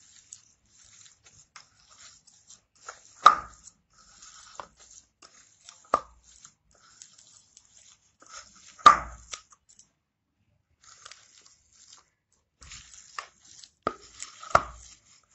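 A hand kneading a soft mash of boiled elephant foot yam and shrimp in a stainless steel bowl, with faint squishing and crackling. Sharp knocks against the steel bowl come about three seconds apart, then several in quick succession near the end.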